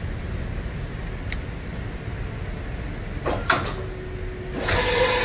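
Arm-type automatic tool changer of a Hyundai Wia VX-650/50 vertical machining center loading a tool into the 50-taper spindle. Over a steady machine hum come clattering knocks about three seconds in and a brief motor whine, then a loud hiss of air as the tool is released and clamped near the end.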